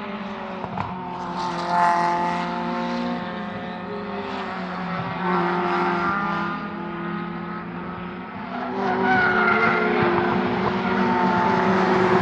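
Several racing cars on a circuit at speed, their engines overlapping at different pitches, growing louder about nine seconds in.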